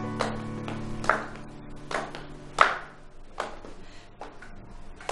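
Footsteps clicking on a hard tiled floor, a sharp knock with a short ring about every three-quarters of a second, at walking pace. A music chord fades out under the first steps.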